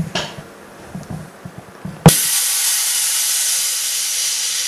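JiuTu mini laminating machine (an OCA vacuum laminator and bubble remover): about two seconds in, a valve clicks and air starts hissing steadily through it.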